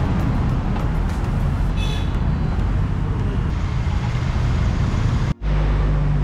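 Honda H'ness CB350's single-cylinder engine running, mixed with street traffic. The sound changes abruptly near the end to a steadier low hum.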